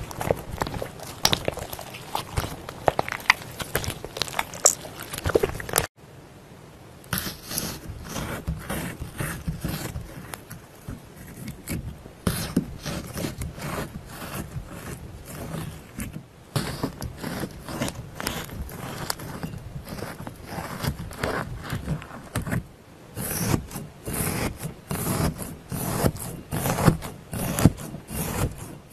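Dark, sticky slime squeezed and squished by hand, giving many short wet clicks and pops. About six seconds in it changes to a pointed tool scraping and poking into a firm green-and-blue gel block, a busy run of small clicks and scrapes.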